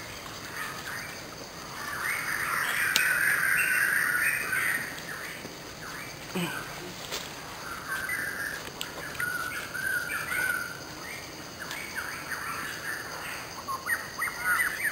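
Birds chirping and calling, short pitched calls that come thickest for a few seconds about two seconds in, with a couple of sharp clicks among them.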